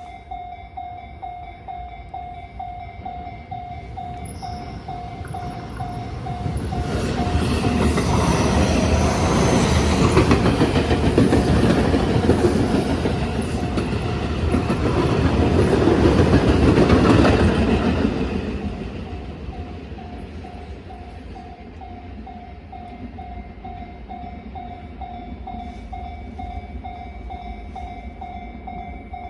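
Japanese railway level crossing's electronic warning bell ringing in a steady, rapidly repeating pattern, while an electric train on the Tobu Tojo Line passes through the crossing from about six seconds in to about nineteen, its wheels clattering over the rails and drowning the bell at its loudest.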